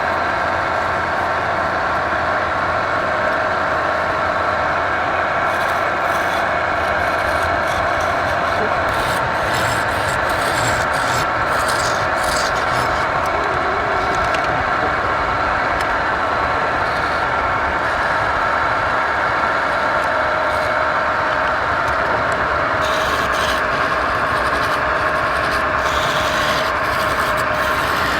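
Wood lathe running with a steady machine hum while a turning tool cuts the spinning wood, the scraping coming and going in stretches, heaviest in the middle and near the end.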